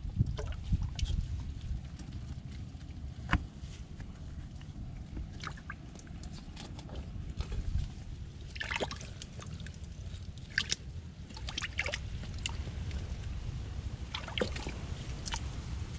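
Muddy water sloshing and dripping as hands and a wooden stick probe a flooded mud crab burrow among mangrove roots, with scattered small splashes and wet clicks over a steady low rumble.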